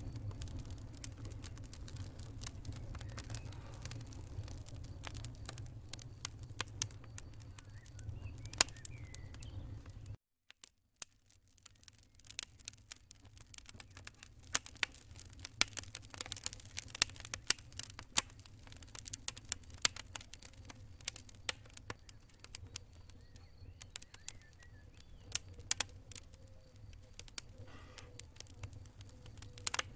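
Wood fire in a fireplace crackling, with sharp irregular pops over a low rumble of flames. About ten seconds in the sound cuts out for about a second, then the crackling starts again.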